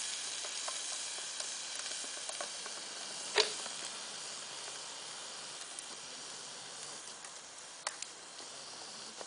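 Molten aluminium poured from a crucible into a steel mould: a steady hiss and sizzle that slowly fades, with scattered small crackles and a sharp crack about three seconds in and another near the end.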